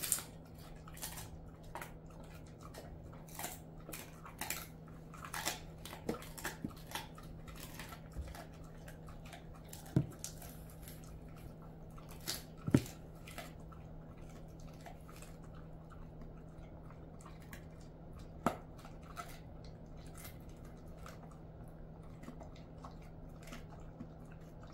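A Jindo dog chewing a chicken-foot treat with its side teeth, with a run of crisp crunches of bone and skin. The crunches come thick in the first half and grow sparse later, with a few louder cracks about ten, thirteen and eighteen seconds in.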